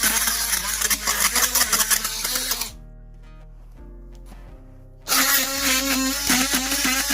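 DeWalt oscillating multi-tool buzzing as its blade cuts staples out of a wooden seat frame, its pitch wavering under load. It stops for about two seconds in the middle, then starts again. Background music plays throughout.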